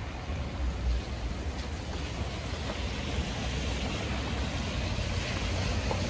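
Wind rumbling on the microphone, with the tyre hiss of passing street traffic building from about two seconds in.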